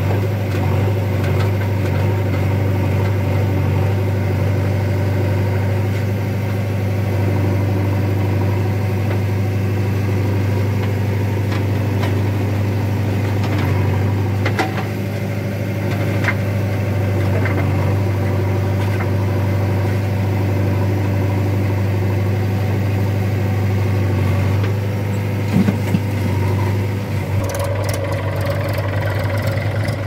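JCB backhoe loader's diesel engine running steadily while the backhoe digs and loads soil, with a few short knocks from the bucket and boom. Near the end the sound changes to a Mahindra 275 DI tractor's diesel engine idling close by.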